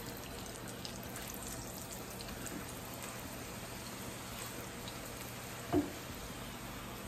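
Corn tortillas frying in shallow oil in a skillet: a steady, faint sizzle with scattered light crackles as they are turned with metal tongs. A short, louder low sound about six seconds in.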